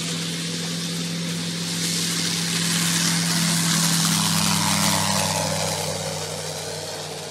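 Light high-wing aircraft's propeller engine running at takeoff power as the plane rolls along a grass strip, lifts off past the listener and climbs away. It grows louder to a peak about five seconds in, drops in pitch as it passes, then fades.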